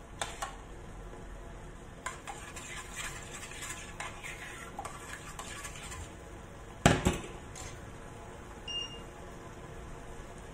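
A metal spoon stirring and scraping in a stainless steel saucepan of sauce, clinking lightly against the pot, with one loud clank about seven seconds in. A short beep near the end from the induction hob's touch control as the heat is turned down.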